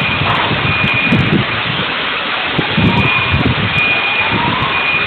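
Steady rushing noise with uneven low rumbling, and a faint high-pitched beep repeating about once a second, like an alarm sounding in the aftermath of an explosion.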